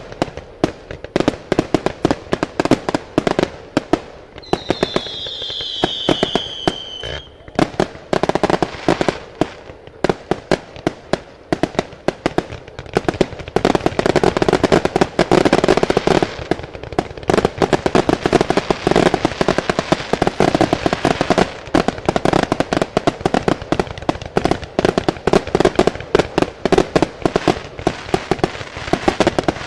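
Aerial fireworks display: rapid, almost continuous bangs and crackling from bursting shells, with one long falling whistle a few seconds in.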